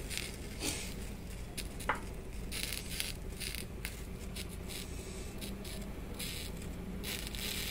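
Low, steady sound of a lit gas stove burner heating a small steel pot of water, with faint scattered ticks and a brief faint squeak about two seconds in.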